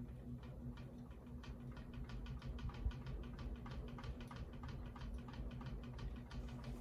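Ceiling fan running with a steady motor hum and a fast, even ticking rattle, which the owner puts down to blades not screwed in tight enough.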